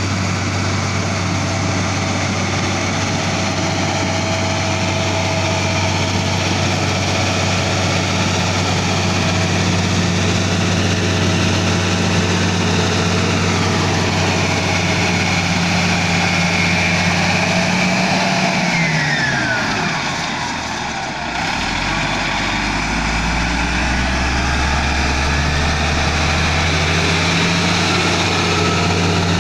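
Komatsu GD555 motor grader's diesel engine running steadily. About two-thirds through, its revs fall away with a falling whine and it runs slower for a few seconds, then picks back up near the end.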